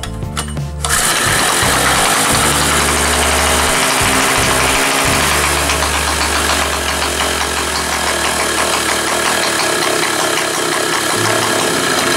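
Yamashita YT 950 generator's small two-stroke engine pull-started, catching about a second in and then running steadily at idle with the throttle lever in the middle position. Its spark plug is gapped to 0.60 mm, and the engine keeps idling smoothly.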